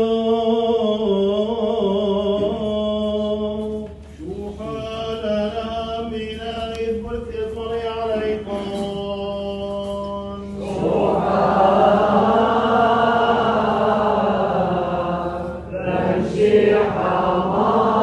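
Liturgical church chant: men's voices sing long, held notes that step slowly from pitch to pitch. About ten seconds in, a fuller group of voices joins and the chant grows louder.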